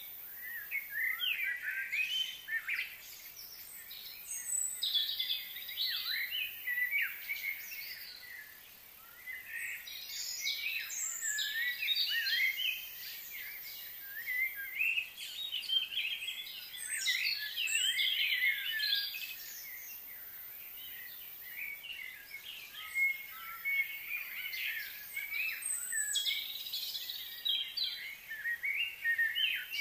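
Several wild birds chirping and singing in overlapping bursts of short high chirps and trills, coming in clusters every few seconds.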